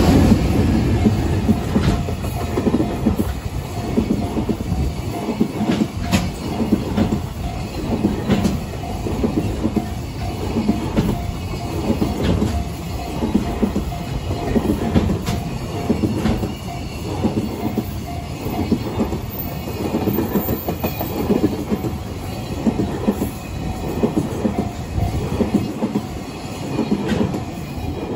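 A container freight train passes close by, hauled by a JR Freight EH500 electric locomotive. It is loudest as the locomotive goes past at the start, then the wagons' wheels clatter over the rail joints in a steady rhythm, about one beat a second, with sharp clicks here and there.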